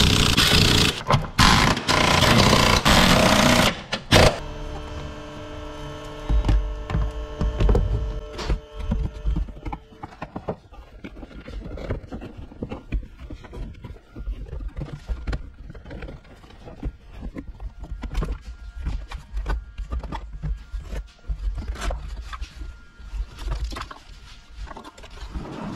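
A powered ratchet runs loudly on the engine mount bolts for about four seconds and stops abruptly. After that come quieter clicks, scrapes and low knocks of hands working in the engine bay.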